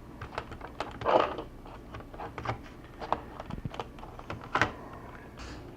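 Laptop casing and parts being handled: irregular small plastic clicks and knocks, with two short scraping rustles, about a second in and again past four seconds in.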